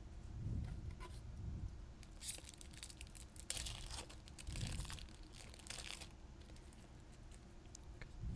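Foil wrapper of a Magic: The Gathering booster pack being torn and crinkled in the hands, a run of crackly tearing and crumpling through the middle few seconds, with a few soft handling thuds.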